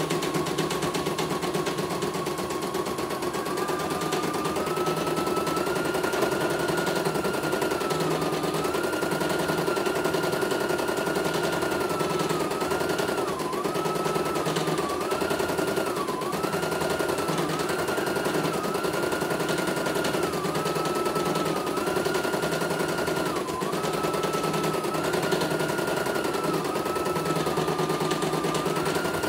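CNY E900 computerised embroidery machine stitching a design: a fast, even needle rattle over a motor whine. The whine steps up in pitch a few seconds in and dips briefly several times as the machine runs.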